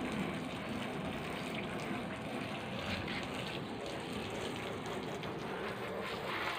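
Garden hose spraying water onto a car, with water splashing and running over the ash-caked bodywork, a steady rush.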